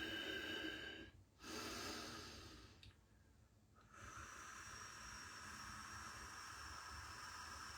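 A faint long breath out, without words. Around it are steady high tones: several stop about a second in, and after a short lull a single high tone starts about four seconds in and holds.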